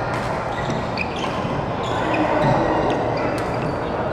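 Doubles badminton rally: a few sharp racket hits on the shuttlecock and quick footwork on the court mat, over the steady din of a busy hall.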